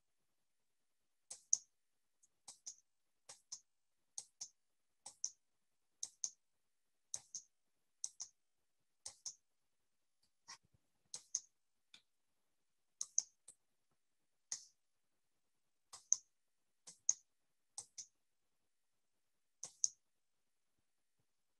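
Slow, evenly paced clicking of computer keys, mostly in pairs about once a second, with dead silence between the clicks.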